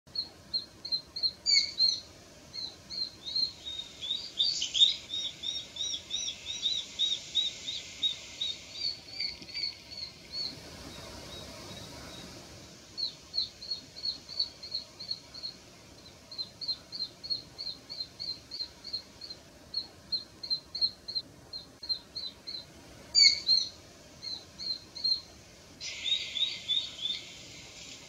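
Juvenile Japanese sparrowhawk (Accipiter gularis) repeating a short, high 'pii' call at an even pace, about three or four a second, with a pause of a few seconds near the middle. The uploader takes it for the fledgling's contact call.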